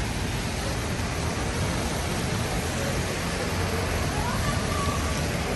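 Steady city-street ambience in the rain: an even hiss of rain and wet traffic with a low rumble of vehicles, and faint passing voices about four seconds in.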